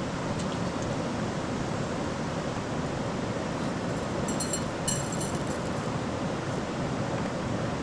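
Steady rushing of a river's flowing water, with a brief high-pitched sound of a few quick pulses about four to five seconds in.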